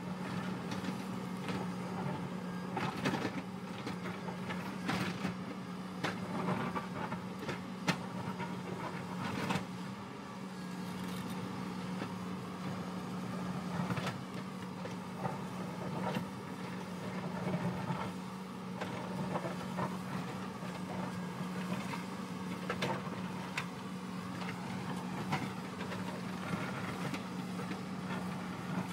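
Hyundai crawler excavator's diesel engine running steadily under load, with irregular knocks and scrapes as its steel bucket digs into the rock face and loose stones tumble down.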